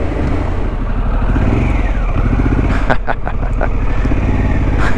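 Harley-Davidson Pan America 1250's V-twin engine running under way through a Screaming Eagle aftermarket exhaust, with a quick run of short crackles about three seconds in.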